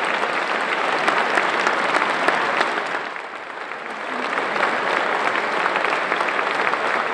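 Audience applauding after a speech: dense clapping that eases a little about three seconds in, then swells again.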